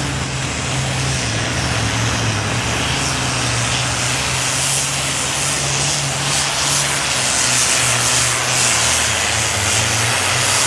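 Super Farm class pulling tractor's turbocharged diesel engine running flat out under load as it drags the weight-transfer sled, growing slightly louder toward the end.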